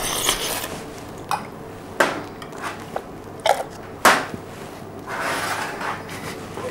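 Coffee slurped hard in a tasting: a spraying suck of air and liquid near the start and again about five seconds in, with four sharp, light clinks in between.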